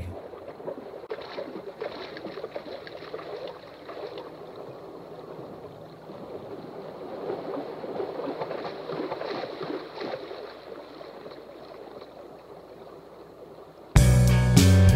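Water splashing and gurgling, unsteady, swelling and fading, with no instruments under it. Near the end the full band crashes back in loudly.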